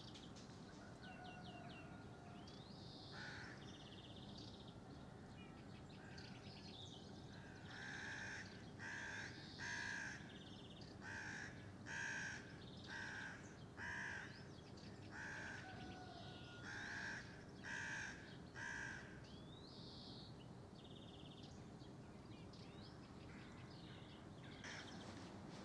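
Crow cawing repeatedly: about a dozen harsh caws, roughly one a second, bunched in the middle, with small birds chirping and twittering now and then.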